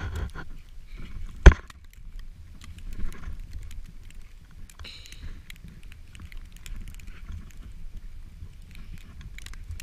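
Wind buffeting an action camera's microphone in a snowstorm, a steady low rumble with the rustle and crunch of snow as the wearer moves. One sharp knock on the camera about a second and a half in.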